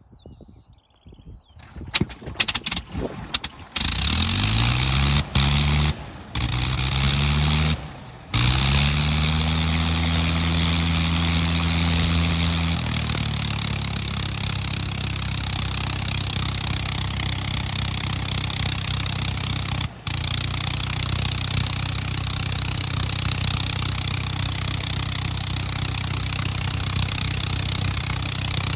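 Nine-cylinder Gnome Monosoupape rotary engine of a Fokker E.III reproduction being started by hand-swinging the propeller: a few ragged firings, then it catches about four seconds in and picks up speed, cutting out briefly several times before settling into a steady run. A few seconds later it drops to a lower, steady speed, with one more brief cut-out about two-thirds through.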